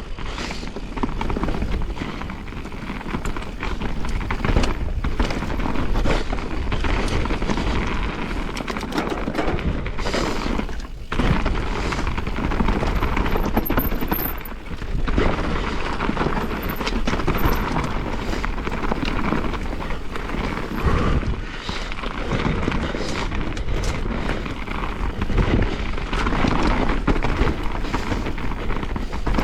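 Mountain bike riding down a rough trail, heard through a mounted action camera: a steady rush of wind and tyre noise with frequent knocks and rattles as the bike goes over rough ground.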